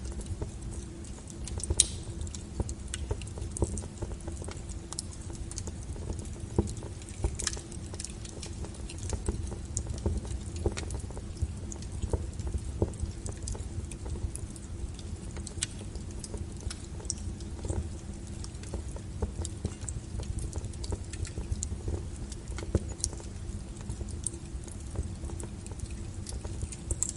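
Wood fire burning, crackling with frequent irregular pops and snaps over a low rumble.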